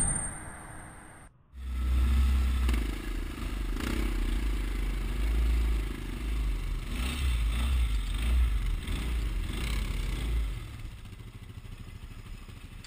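The tail of an intro music sting fades out in the first second. After a brief gap comes a Polaris Sportsman ATV's single-cylinder four-stroke engine running as the quad rolls down a rocky dirt trail, with a heavy low rumble and clattering and scraping from the stones and the machine. It turns quieter about ten seconds in.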